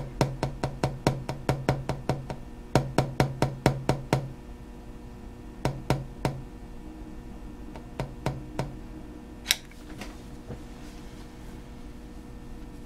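Rapid runs of sharp clicks, about five a second, for the first four seconds, then shorter runs and a last single click about halfway through. A low hum comes and goes alongside the early runs.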